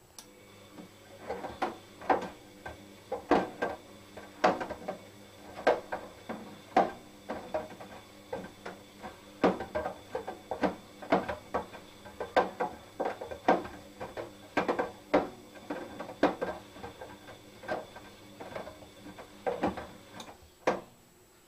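A domestic laundry machine's drum turning, with the load tumbling and knocking against it irregularly, about one or two knocks a second, over a steady motor hum.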